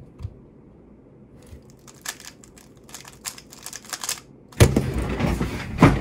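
Rapid clicking of a WR M 3x3 speedcube's layers being turned during a three-second solve. About a second after the clicking stops comes a loud thump, then a second and a half of loud rustling and knocking as the solver jumps up from the chair.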